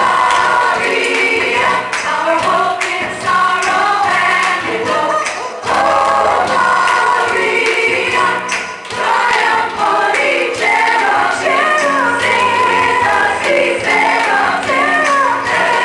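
A choir singing an upbeat gospel-style song with accompaniment, many voices together.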